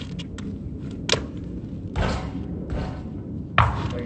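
A few thuds of a basketball: a sharp one about a second in and a heavier one near the end, over a steady low rumble.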